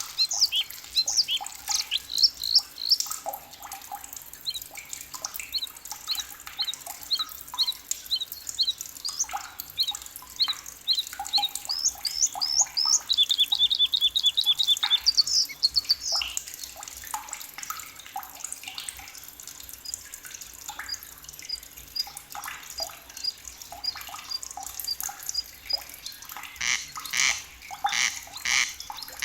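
Several forest birds singing and chirping, with short high whistled notes overlapping. About halfway through one bird gives a rapid, even trill for a couple of seconds, later a series of thin high pips repeats steadily, and near the end louder repeated calls begin.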